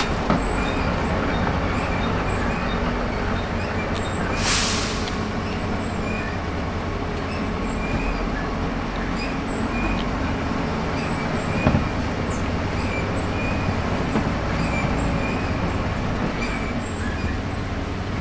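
Volvo B7RLE single-deck bus's straight-six diesel engine running as the bus drives, heard from inside the saloon, with small squeaks and rattles from the fittings. A short burst of air hiss about four and a half seconds in.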